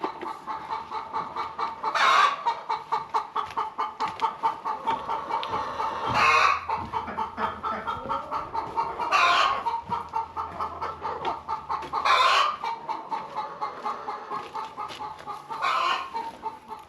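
A flock of hens clucking steadily in a henhouse, with a louder call standing out about every three to four seconds.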